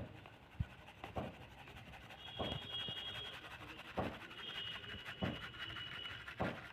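Flour being sifted through a hand-held sieve: quiet rustling with soft taps about every second and a half as the sieve is shaken.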